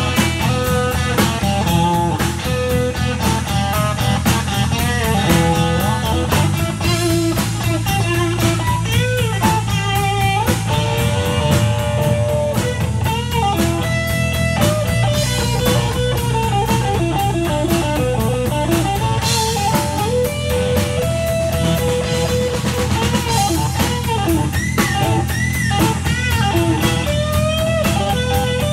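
Live band playing: an electric guitar takes the lead with bent notes that slide up and down in pitch, over a drum kit keeping a steady beat.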